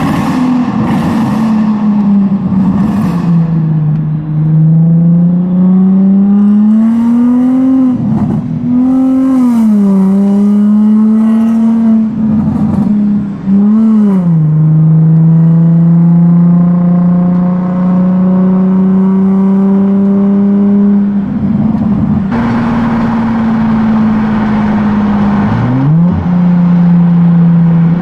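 Infiniti G35's VQ35DE V6 running through a new custom single-exit exhaust while driving. The engine note climbs slowly, drops sharply at several gear changes and holds steady through long cruising stretches.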